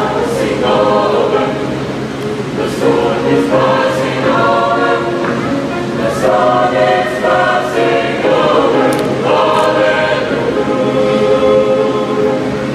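Mixed high school choir singing a gospel song in held chords, phrase after phrase, with piano accompaniment.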